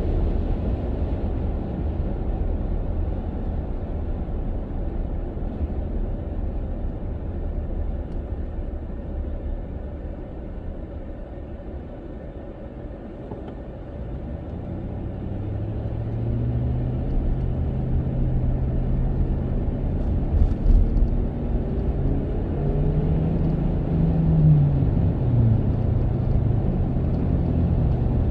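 Car road noise and engine hum heard from inside the cabin: the rumble eases as the car slows about twelve seconds in, then the engine hum rises in pitch as it picks up speed and drops suddenly near the end, like a gear change. A brief thump about twenty seconds in.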